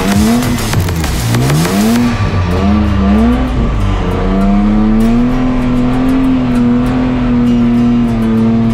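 BMW drift car's engine revving hard, its pitch rising and falling several times, then held steady at high revs for the rest of the time. Tyre squeal runs over the first two seconds.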